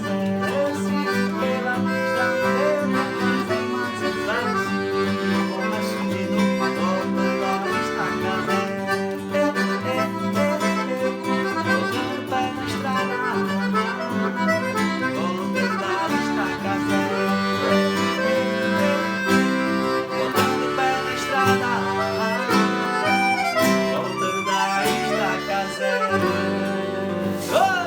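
Instrumental passage of a forró song: accordion playing the melody over guitar accompaniment.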